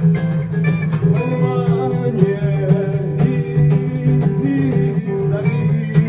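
A band playing a song: strummed guitar over a steady beat.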